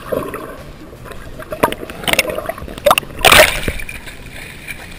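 Water sloshing and gurgling around a GoPro as it rises from underwater through the surface, with a few sudden loud splashes in the middle, the last the loudest, then a steady wash of water.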